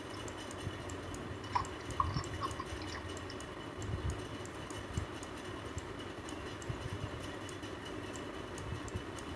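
Quiet room background with many faint, sharp ticking clicks and a few soft low thumps.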